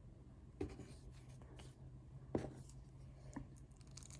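Quiet hand work on a kitchen counter while rolling momo wrappers: two soft knocks and a fainter one, with light scraping between, over a faint steady low hum.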